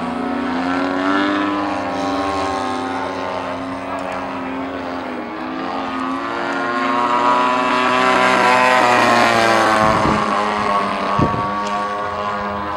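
Engines of several radio-controlled model airplanes flying overhead: a steady buzzing drone of overlapping pitches that rise and fall as the planes pass, growing louder about halfway through.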